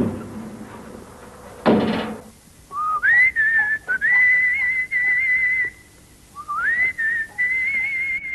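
A person whistling a slow tune in two similar phrases, each sliding up into a long wavering held note. Before it, about two seconds in, there is a brief loud burst of noise.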